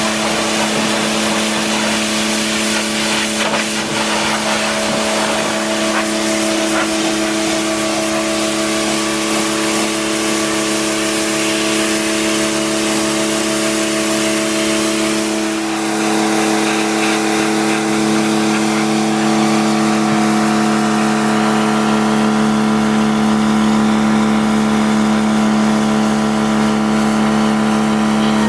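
Greenworks Pro 60V battery-powered pressure washer running: a steady motor-and-pump hum under the hiss of the water jet spraying on stone. About halfway through, the hum's pitch pattern shifts slightly and the hiss lessens.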